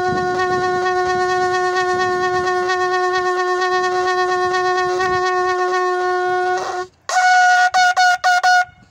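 A curved hand-held horn blown in one long, steady note. Near the end it breaks off and jumps to a higher note, sounded as a few short, choppy blasts.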